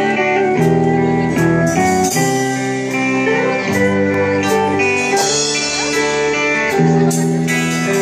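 A band playing the instrumental introduction to a song, led by guitar, with chords changing every second or so.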